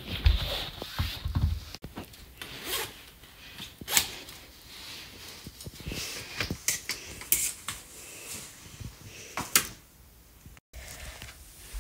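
A few low thumps as sneakers are taken off, then the rustle of a jacket being unzipped and pulled off, with several sharp clicks and taps in between.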